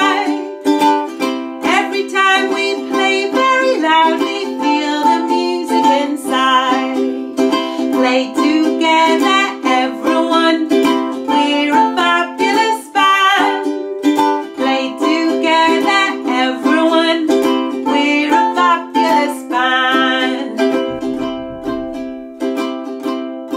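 A woman sings while strumming chords on a wooden four-string ukulele. Near the end the singing stops and the strumming carries on.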